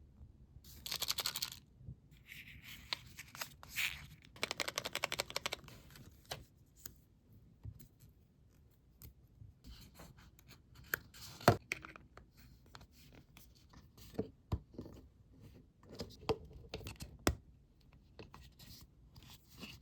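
Close-up handling of craft-kit materials: rustling and scratching, then a run of fine rapid crackles about five seconds in. After that come scattered light taps and clicks, one sharper click near the middle.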